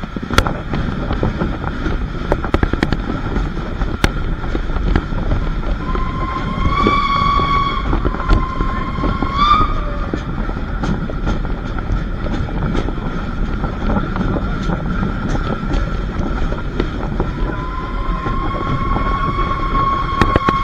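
Heritage train running, a steady rumble with scattered sharp clicks from the wheels. Its whistle sounds two short notes, the second rising at its end, and a longer note begins a few seconds before the end.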